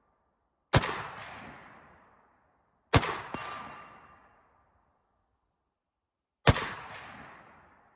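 Three rifle shots from a PSL-54C semi-automatic rifle in 7.62×54R, spaced about two and three and a half seconds apart. Each shot echoes and fades over a second or two, and a faint second knock follows shortly after the first two shots.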